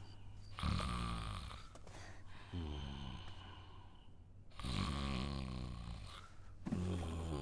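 A person snoring, with several long, drawn-out rattling snores following one another in a steady rhythm.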